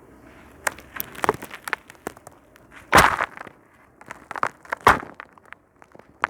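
Sand grains on concrete being crunched and scraped: an irregular run of gritty crackles, loudest about three seconds in and again near five seconds.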